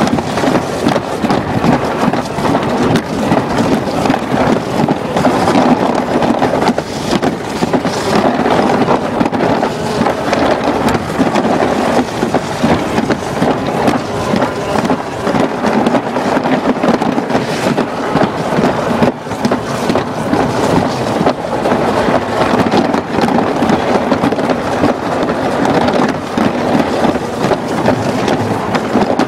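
Alpine slide sled running down its track: a loud, steady rushing rumble with no breaks.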